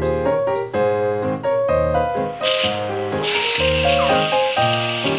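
Instant Pot pressure cooker's steam release valve venting during a quick release: a loud hiss that starts about halfway in, drops out for a moment, then carries on and cuts off suddenly near the end. Piano music plays underneath.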